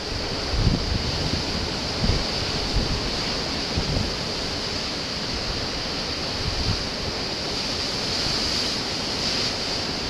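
Storm surf breaking on a rocky shore: a steady rush of rough sea, with wind now and then buffeting the microphone in low thumps.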